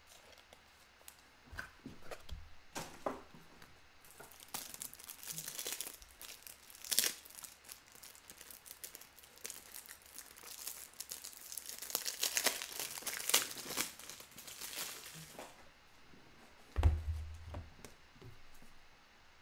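Foil trading card pack wrapper being crinkled and torn open, with a dense crackle from about four seconds in to about fifteen seconds, then a single low thump near the end.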